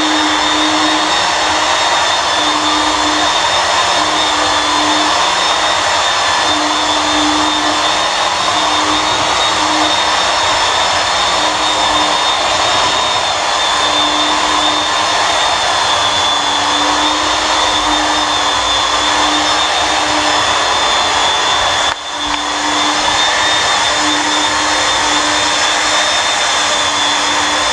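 Belt sander running steadily under load, stripping many old coats of finish off timber deck boards: a steady high whine over a hiss, with one brief drop in level about three-quarters of the way through.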